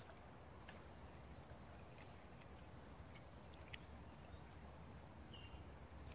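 Near silence: faint outdoor riverside ambience with a few faint ticks.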